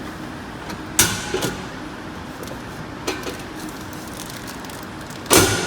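Three sharp knocks and clatters, the loudest near the end, from the vending machine's pick-up flap being pushed open and the purchased item taken out, over a steady background hum.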